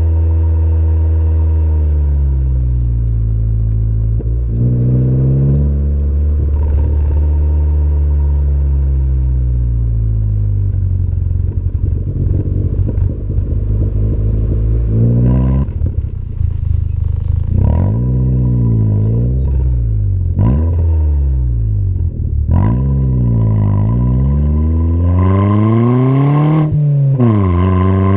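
Ford Fiesta Zetec S with a custom aftermarket exhaust, driven hard: the engine note falls and climbs, holds fairly steady for a while, then revs up several times, each climb cut off by a sudden drop with a sharp crack from the exhaust.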